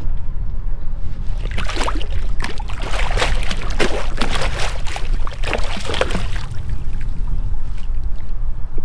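Water splashing and sloshing at the surface as a large jack crevalle, held by a lip grip beside the boat, is moved and kicks in the water while being revived for release. The splashing is busiest from about a second and a half in to about six and a half seconds, over a steady low rumble.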